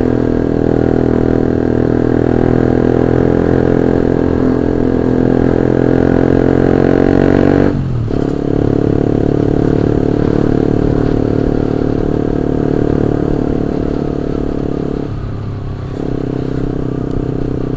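Honda CB150R's single-cylinder engine running under way through an aftermarket SC Project titanium racing exhaust, a steady note that breaks sharply about eight seconds in and dips again about fifteen seconds in as the throttle comes off.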